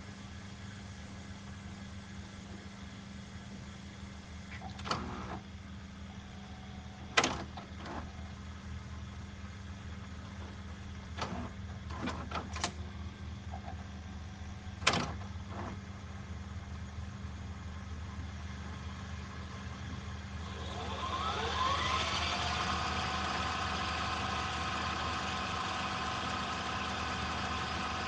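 A tape machine's transport clunks several times as its buttons and mechanism engage over a steady hum. About twenty seconds in, its rewind motor spins up with a rising whine that levels off into a steady high whir as the tape winds at speed.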